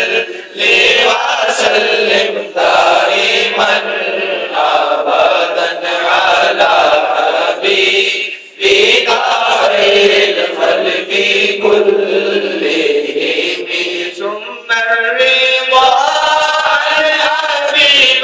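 A man singing an Islamic devotional hymn (naat) into a microphone, drawing out long, wavering melodic phrases, with a short breath break about eight and a half seconds in.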